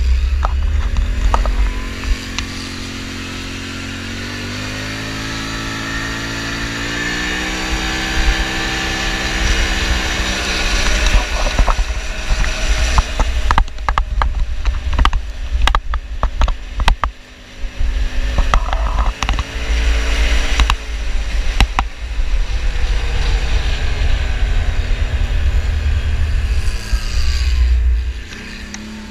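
Quad bike (ATV) engine running under way, its pitch climbing as it picks up speed and then holding steady. A run of sharp clicks and knocks comes in the middle, and the engine drops back near the end.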